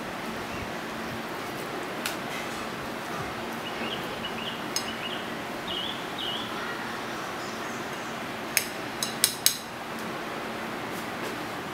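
Silicone spatula working chicken in a glass bowl: sharp clinks against the glass about two and five seconds in, then four in quick succession near the end, over a steady background hiss.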